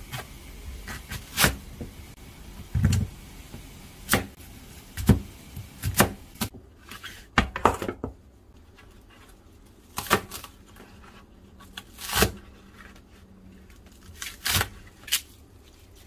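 Irregular sharp knocks and clicks, about a dozen, as an onion is cut up by hand.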